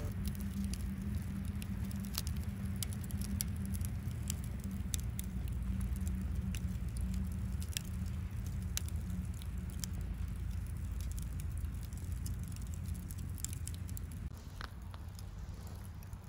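Scattered light ticks and pops at irregular intervals over a low, steady rumble.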